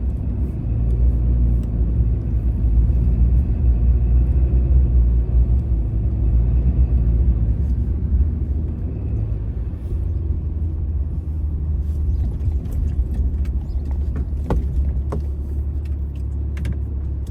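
Dodge pickup truck driving slowly across a field: a steady low engine and road rumble, with a few clicks and rattles in the second half.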